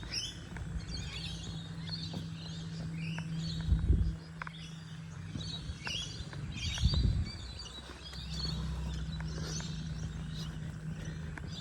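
Several birds chirping and calling, short repeated high notes scattered throughout, over a steady low hum. Two brief low thumps, about four and seven seconds in, are the loudest sounds.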